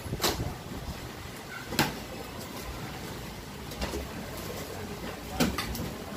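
Steady background noise broken by three short, sharp knocks: one right at the start, one about two seconds in and one near the end. They are typical of equipment and cables being handled.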